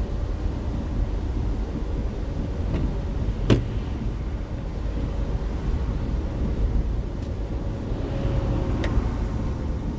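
Steady low road and engine rumble heard from inside a moving car, with a sharp click about three and a half seconds in and a fainter one near the end.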